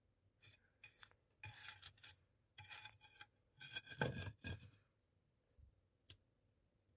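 Disposable lighter's flint wheel being struck repeatedly: short rasping scrapes in several groups, loudest about four seconds in, then a single sharp click near the end.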